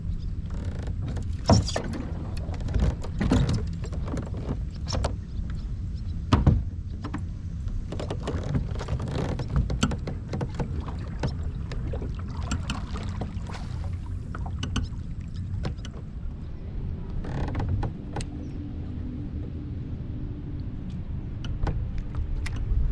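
Knocks and clicks from handling fishing gear in a plastic fishing kayak over a steady low rumble, the sharpest knocks about one and a half and six seconds in.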